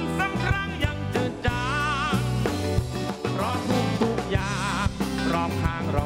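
Live band playing a slow rock song, with drums keeping a steady beat under bass and guitars, and a man's voice singing with vibrato over it.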